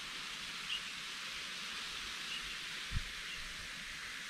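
Bicarbonate of soda and vinegar reacting in a small cup: a steady fizzing hiss of bubbling foam. A few faint bird chirps and a soft thump about three seconds in.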